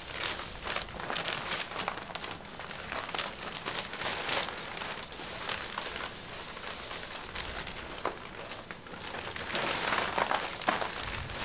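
Chopped Napier grass and a plastic silage bag rustling and crinkling as they are handled, a steady crackle of many small clicks that grows a little louder near the end.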